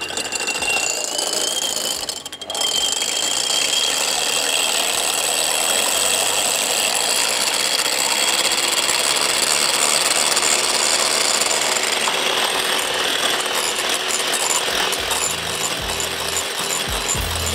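Electric mixer running steadily, its beaters whisking egg whites toward stiff peaks. It dips briefly about two seconds in, then runs on a little louder.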